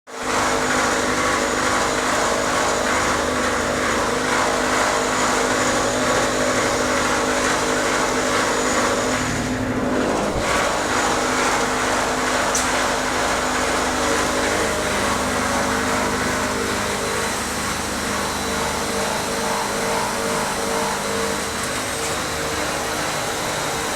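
Industrial recycling machine running, a steady loud mechanical noise with several steady hum tones; the sound briefly dips and changes about ten seconds in, then carries on.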